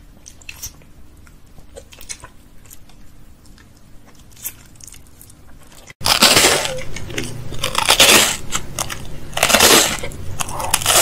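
Close-miked eating sounds. For about six seconds there are only faint wet mouth sounds and small ticks while a soft gummy candy is chewed. Then a crisp wafer-like bar is bitten and chewed with loud crunches, the biggest bursts about eight and nine and a half seconds in.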